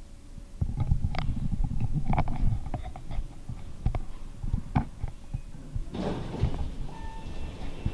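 Low rumble and bumps of an action camera being carried and handled, with scattered sharp clicks. About six seconds in, a hiss rises for a second or so, and a short faint tone sounds near the end.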